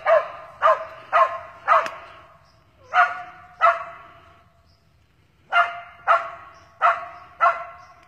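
Cur dog barking treed at a fox squirrel, in a steady rhythm of about two barks a second. The barking pauses for about a second and a half in the middle, then starts again.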